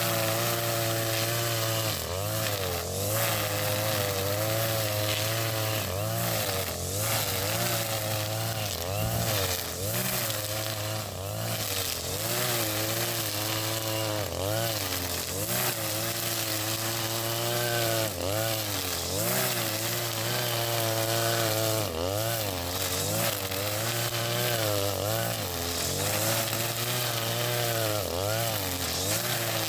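Husqvarna 542RBS 42cc two-stroke brush cutter running hard with square nylon trimmer line, its engine pitch dipping and recovering again and again as the line cuts into grass, with scattered brief ticks.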